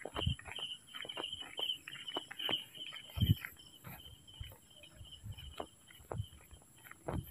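Insects chirping in a rapid, even pulse, strongest in the first few seconds. Under them are the low thuds of a person's footsteps walking briskly on a road.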